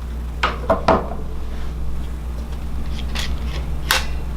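Short sharp plastic clicks and taps from handling the keys and key frame of an opened Korg PS800 keyboard: three close together about half a second in, then two more near the end, over a steady low hum.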